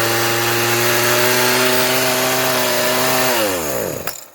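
Homelite 3514 two-stroke chainsaw engine running steadily, then shut off about three seconds in, its pitch falling as it winds down to a stop, with a short click at the end. It is running again after a repair to get it to start.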